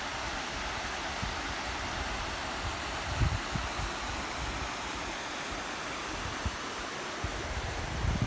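Small waterfall's water rushing steadily, with a few brief low thumps about three seconds in.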